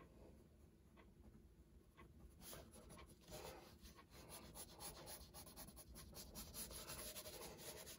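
Faint scratching of a red pencil drawing on toned sketchbook paper: a few light strokes at first, then from a couple of seconds in a quick run of short hatching strokes.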